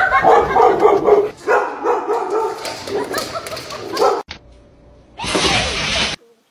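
A dog barking, yipping and whimpering. Near the end comes about a second of even rushing noise that cuts off suddenly.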